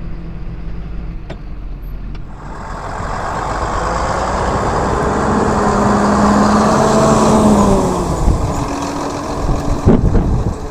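Diesel tractor engine revving up and working hard, its pitch climbing slowly for several seconds before dropping back about eight seconds in. Wind buffets the microphone near the end.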